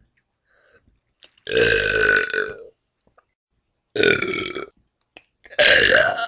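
A person burping deliberately, three loud burps in a row: the first lasts over a second, the next two are shorter.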